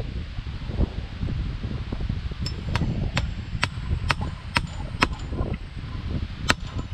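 Claw hammer driving fence staples into a wooden post to fasten the line wires of hinge-joint field fence: a run of about eight sharp metal strikes, roughly two a second, starting about two and a half seconds in, then one more strike near the end.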